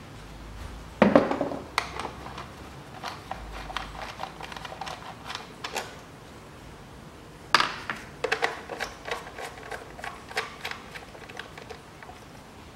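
Irregular metallic clicks and knocks of a socket tool and small bolts being handled while the 10 mm bolts of the engine's top cover are undone. There is a sharper knock about a second in, another about seven and a half seconds in, and a run of small clicks after it.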